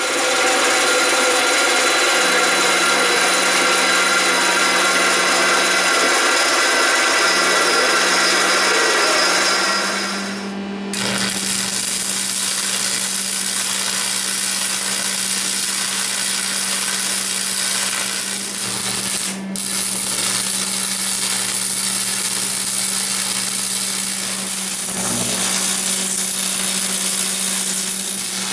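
A metal-cutting band saw running and cutting steel channel, a steady whine, for about the first ten seconds. It then stops and arc welding takes over: a steady crackling hiss with a brief break about two-thirds of the way in.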